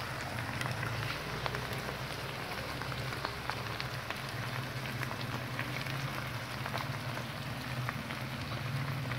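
Ground pork, hot dogs and freshly poured tomato sauce sizzling and crackling in a hot frying pan, with many small pops throughout and a steady low hum underneath.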